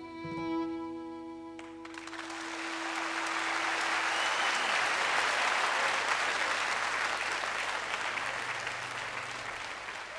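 The last notes of an acoustic guitar piece ring out and fade, and from about two seconds in audience applause swells up and carries on steadily.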